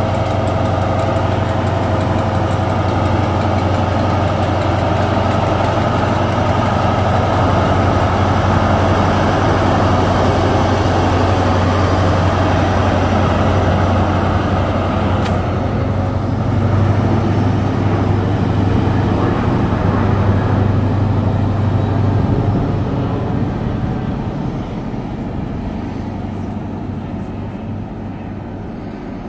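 InterCity 125 (Class 43) power car's diesel engine running loud and steady under power as the train moves past, with a deep engine note. The sound fades over the last several seconds as the train draws away.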